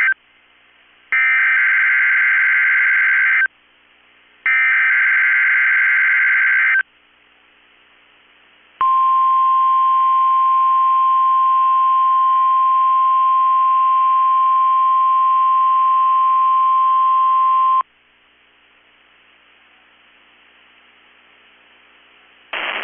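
NOAA Weather Radio Emergency Alert System test signal. The end of one buzzing SAME data burst is followed by two more, about two seconds each with a second's gap between them, marking the start of the Required Weekly Test. After a short pause comes the steady 1050 Hz warning-alarm tone for about nine seconds, which then cuts off.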